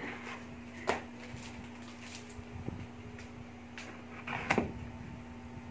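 Molded paper-pulp packaging being handled and cut open with scissors: a sharp knock about a second in, light taps and scrapes, then a louder cluster of snips and knocks near the end as the tape holding it shut is cut.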